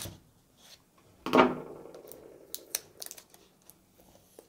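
Seal stickers and tabs being picked and peeled off a cardboard game box by hand: one louder peel about a second and a half in, then light scattered clicks and scratches of fingers on the cardboard.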